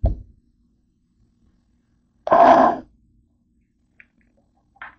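A sharp knock on a tabletop, then about two seconds later a person briefly and loudly clearing their throat. Faint small clicks near the end.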